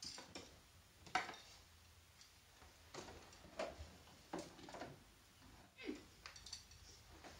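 Scattered light clicks and taps of small plastic dollhouse furniture and dolls being handled and set down, about one every second.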